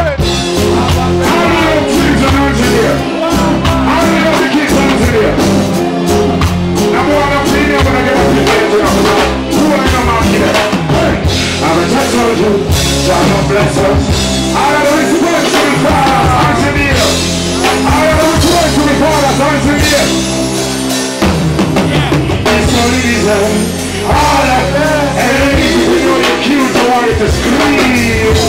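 A live reggae band plays loudly through the PA, with drum kit, bass, electric guitar and keyboards. A male vocalist sings over it into a handheld microphone.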